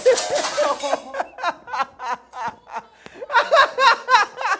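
People laughing hard in quick repeated bursts, with a short pause in the middle. The hiss of window glass that has just shattered is still dying away in the first second.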